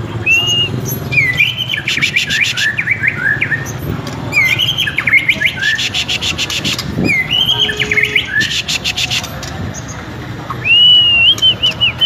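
White-rumped shama (murai batu) singing: phrases of slurred, fluty whistles come every two to three seconds, and between them are bursts of fast ticking rattle. A long, loud whistled phrase comes near the end.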